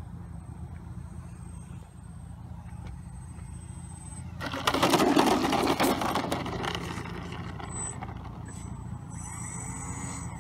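Radio-controlled AC-130 model plane touching down and sliding on asphalt. A loud, rough scraping rush starts about halfway through, lasts about two seconds and dies away, over a steady low drone.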